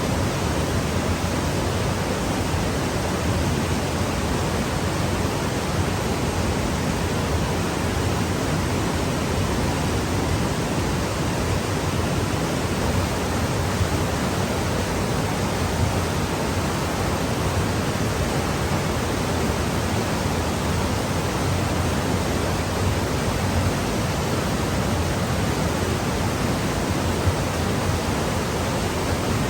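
Steady, unchanging rushing noise spread evenly across low and high pitches, with no distinct events.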